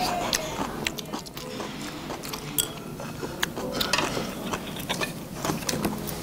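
Chopsticks clicking and tapping against plates and dishes at a laden table, a string of sharp, irregular clicks.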